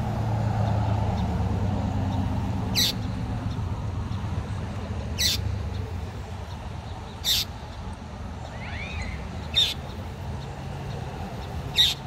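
Northern mockingbird giving short, harsh single calls, five of them about every two seconds, over a low rumble of traffic that is loudest in the first few seconds.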